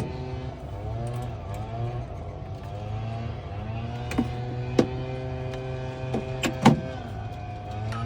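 A motor running steadily, its pitch wavering slowly, with a few sharp clicks about four, five and six to seven seconds in.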